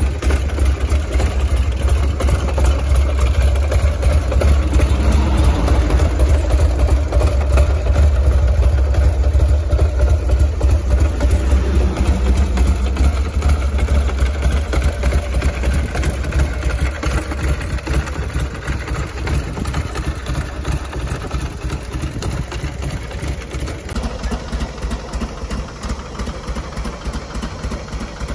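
Buell X1 Lightning's 1203 cc air-cooled V-twin idling, a steady low throbbing pulse. Near the end it cuts to a Buell XB9SX Lightning's V-twin idling, quieter.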